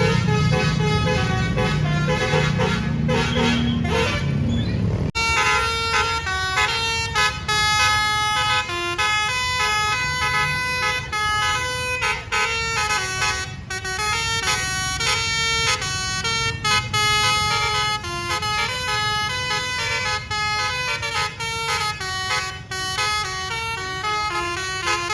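Basuri 'telolet' multi-tone bus air horn playing a quick melody of short notes. For the first five seconds it sits over a low engine rumble; then there is a sudden cut to a cleaner, louder run of horn notes.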